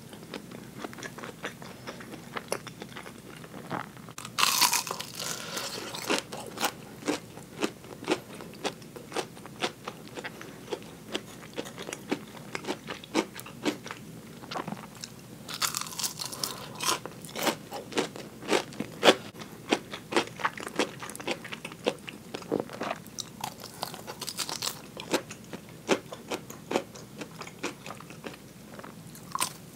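Close-miked eating of crispy fried chicken drumettes: crunching bites into the fried coating, loudest about four and sixteen seconds in, with steady chewing clicks between.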